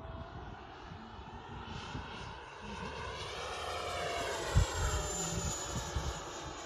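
FMS BAE Hawk 80 mm electric ducted-fan model jet flying past. Its fan whine swells as it comes close and then drops in pitch as it goes away, over a rumble with a low thump about two-thirds of the way through.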